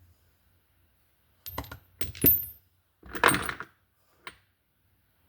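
Loose metal sockets clinking together as they are handled and sorted: a few sharp clinks, one with a brief high ring, then a short rattle and a last small click.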